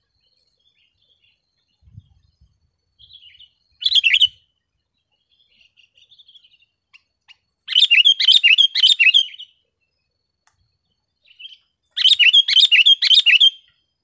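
Sooty-headed bulbul (kutilang) singing: a short call about four seconds in, then two loud phrases of about five quick repeated notes each, near eight and near twelve seconds.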